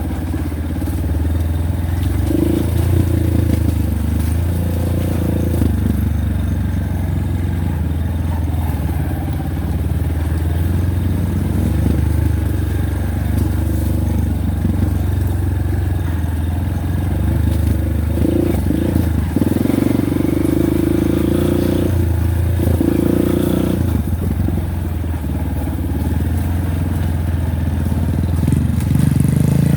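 Honda Win single-cylinder four-stroke motorcycle engine running under way, its low note rising and falling a little with the throttle on a slippery trail.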